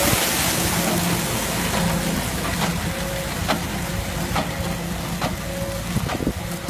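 New Holland hay baler running behind a tractor, its plunger knocking steadily about once a second as it presses hay into bales, over the steady hum of the engine.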